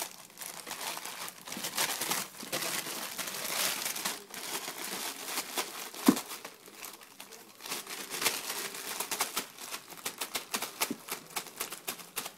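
Thin clear plastic bag crinkling and crackling as a cat paws, bites and rolls on it, in irregular bursts, with one sharp knock about six seconds in.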